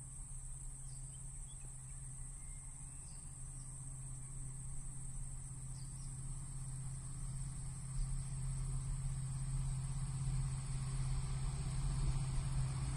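Steady insect buzz with a few short bird chirps in the first half, over a low hum from an approaching WDP4D diesel locomotive that grows slowly louder, its rumble building toward the end.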